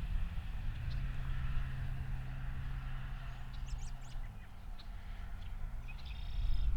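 Vehicle engine running with a low hum, its pitch rising about a second in and falling back a little after four seconds, while birds chirp a few times in the middle and give a short call near the end.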